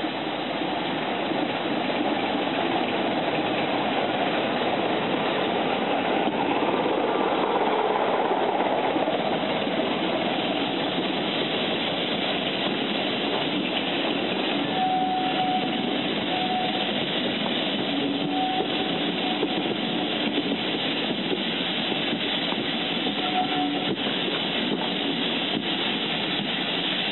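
Class 24 diesel locomotive and its train of coaches passing slowly along a station platform. It is a continuous rolling rumble with the engine sound, loudest about eight seconds in. In the second half the wheels of the coaches click over the rail joints and give a few short thin squeals.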